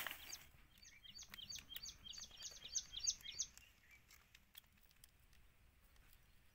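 A bird calling faintly in a quick series of short, high chirps, about three a second, which stops after roughly three seconds.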